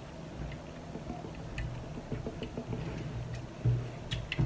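Close-miked chewing: wet mouth and lip clicks over soft low mouth noise, with a couple of louder smacks near the end.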